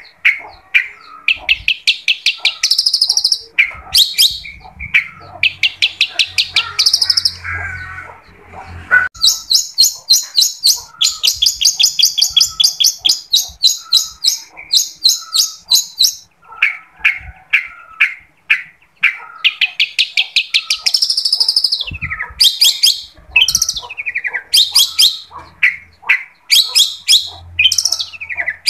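Long-tailed shrike (cendet) singing a long, varied song: fast runs of sharp, high repeated notes, about six or seven a second, broken by brief pauses and lower chattering phrases.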